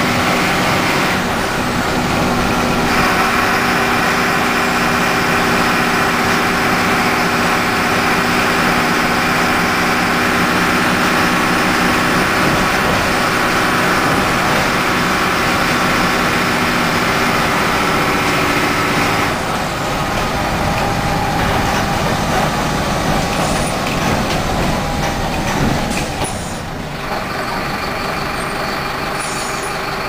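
Mercedes-Benz OF-1417 bus's OM-904 LA four-cylinder turbodiesel running at a steady pitch. About two-thirds in, the even engine tones give way to a rougher, less even sound, with a short sharp sound shortly before the end.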